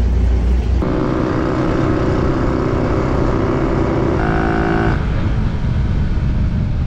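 Motorcycle engine running steadily, stepping up in pitch for under a second about four seconds in, then settling back. A low rumble fills the first second.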